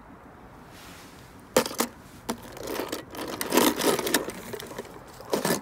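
Handling noises: a few sharp clicks as a die-cast toy car is put into a plastic tub, then a stretch of crackling and rustling like dry leaves and twigs, with another short burst near the end.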